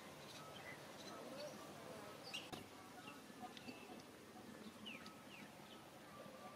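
Faint scattered bird chirps: short high calls, some sliding downward, over a quiet outdoor background, with one sharp click about two and a half seconds in.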